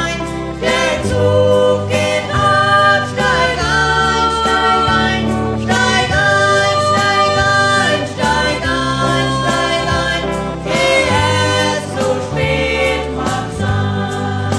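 Music: a German song sung by two singers over instrumental backing with a steady bass line.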